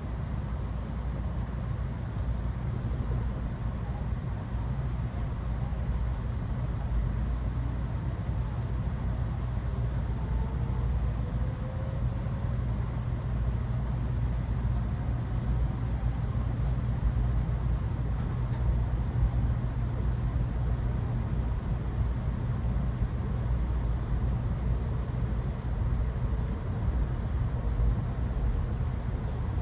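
A Tokaido Shinkansen Kodama train pulling out of the station, heard from inside the passenger cabin. It is a steady low rumble, and a faint whine rises in pitch as the train picks up speed.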